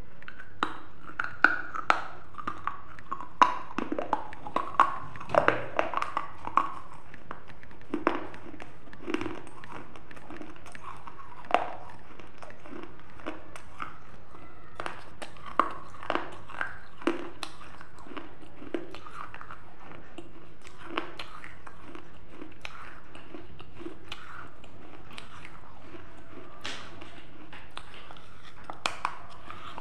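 Teeth biting and crunching into pieces of fired red clay pot, with chewing in between. The sharp cracks come thick and fast for the first several seconds, then grow sparser.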